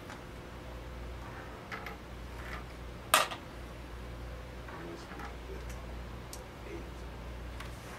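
Crokinole discs clacking on the board: one sharp clack of a flicked disc striking another about three seconds in, with a few fainter taps of discs being set down and knocked later on.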